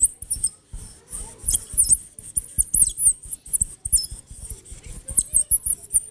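A piece of polystyrene rubbed against a pane of tinted glass, giving a fast, irregular run of short high squeaks that sound like chirping birds or squeaking mice: a foley effect for birds or a cartoon mouse.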